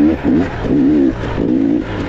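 Dirt bike engine running under throttle, its pitch rising and falling as the throttle is worked, with short drops in level a few times.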